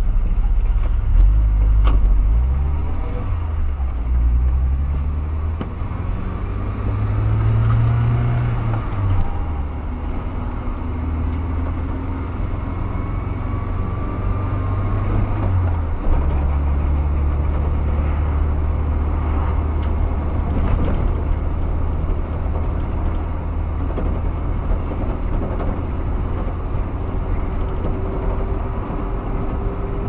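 Car engine running, its low hum rising and falling in pitch through the first ten seconds, then holding steady from about halfway on.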